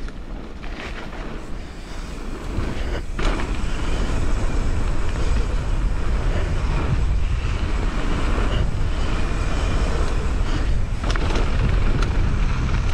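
Wind rushing over the microphone of a mountain bike riding downhill, mixed with the rolling noise of knobby tyres on a dirt and gravel trail. It grows louder a few seconds in as the bike speeds up, with a sharp knock about three seconds in and another near the end as the bike hits bumps.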